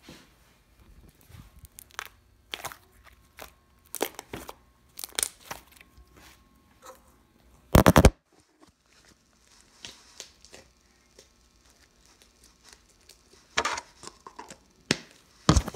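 Plain white slime with little smiley charms being squished, poked and pulled close to the microphone for ASMR: irregular sticky pops and crackles, with a loud crackling burst about eight seconds in and another near the end.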